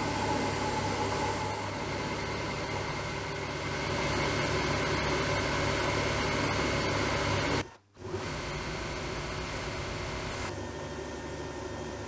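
Small metal lathe running steadily with a low hum while it turns and centre-drills a metal bar. The sound drops out briefly about eight seconds in and comes back quieter.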